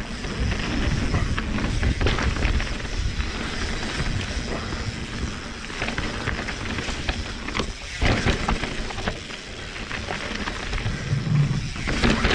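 Mountain bike riding down a dirt trail: tyres rolling over the ground with a steady low rumble, and rattles and sharp knocks from the bike a few times.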